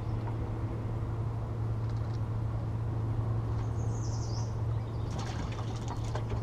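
A bird gives one short, falling high call about four seconds in, over a steady low hum. A run of faint clicks follows near the end.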